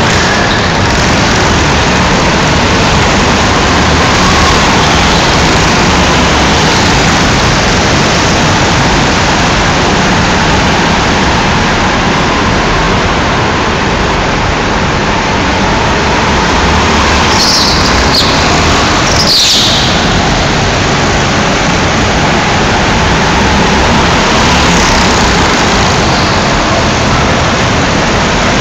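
Go-kart engines running as karts lap an indoor track: a loud, constant, echoing din with a faint engine note rising and falling as karts pass. Two short high squeals sound about two-thirds of the way through.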